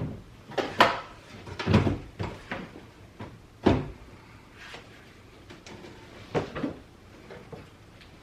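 Scattered knocks and clunks of a replacement tow mirror and its mounting hardware being handled and lined up against a pickup truck door, with a few sharper knocks about one, two and three and a half seconds in.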